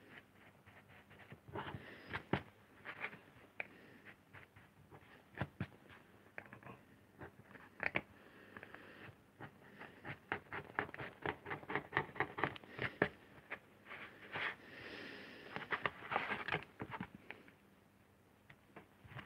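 Hand lino-cutting gouge carving into a linoleum block: short scraping cuts, one after another, coming in quick runs of about three a second in the middle.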